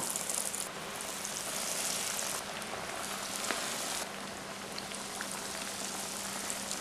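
Breadcrumb-coated vegetable cutlets sizzling and bubbling as they deep-fry in hot oil in a pan. The hiss steps up and down in strength a few times as more cutlets are lowered in.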